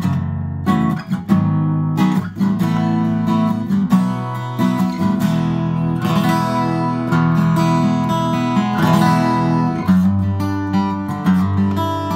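Cat's Eyes CE-400 dreadnought acoustic guitar, solid top with rosewood back and sides, strung with 11-gauge strings, played unaccompanied: strummed chords mixed with picked single notes, ringing full and open.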